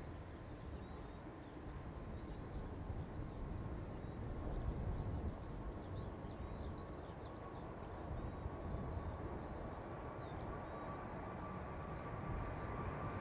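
Boeing 777-200 jet engines at take-off thrust, heard as a distant steady rumble that grows louder, with a steady whine rising in level over the last few seconds as the airliner lifts off and climbs toward the microphone. Faint bird chirps sound over it.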